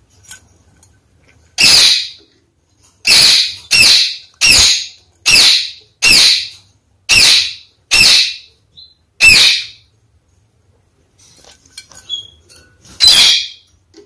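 Red-crowned kakariki (red-fronted parakeet) calling: a run of about nine loud, short calls roughly a second apart, then a pause and one more call near the end.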